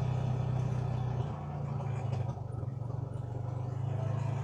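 A vehicle's engine running steadily with a low, even hum.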